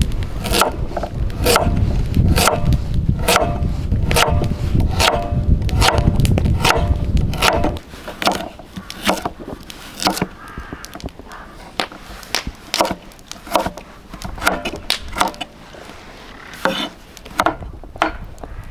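Chopping blows on wood, about two a second, over a low rumble for the first eight seconds. After that come lighter, irregular knocks.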